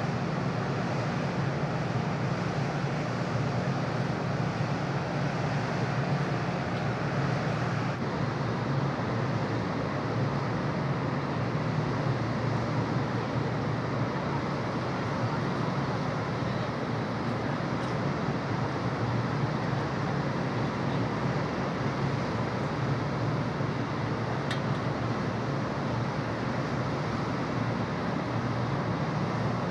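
Steady low drone of the car ferry Rokko's engines, with an even hiss of wind and water over it.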